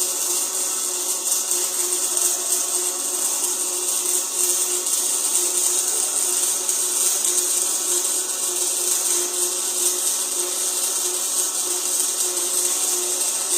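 Electric welding arc hissing steadily while a flange is welded to a pipe elbow, over a steady low hum.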